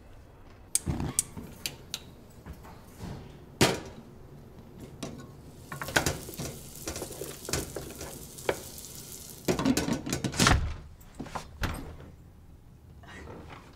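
Cooking in a kitchen: scattered knocks and clatter of a metal pan and utensils, with meat sizzling in the pan for a few seconds in the middle.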